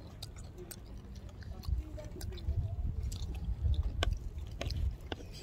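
Someone chewing grilled anchovies close to the microphone, with scattered sharp clicks, the sharpest about four seconds in.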